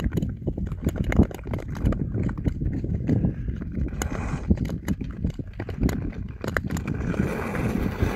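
Nordic tour skates and ski-pole tips on ice: a quick, irregular series of clacks and knocks as blades strike and push off and poles tap the ice, over a low rumble.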